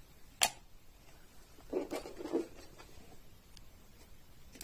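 A single sharp click about half a second in, then faint handling sounds.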